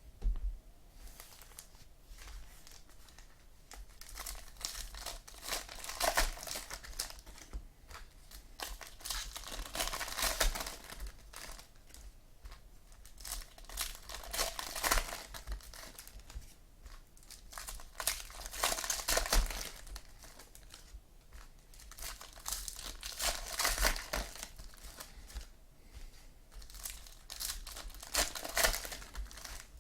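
Plastic-foil trading card pack wrappers being torn open and crinkled by hand, in bursts of crackling every few seconds.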